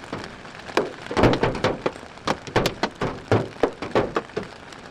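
Large hailstones, some the size of hen eggs, striking a vehicle in a hail storm, heard from inside: loud, sharp bangs at irregular intervals, about two or three a second.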